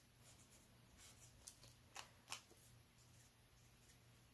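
Near silence: a color lifter blending marker worked over cardstock, with a few faint ticks of its tip on the paper, about a second and a half and two seconds in, over a faint low hum.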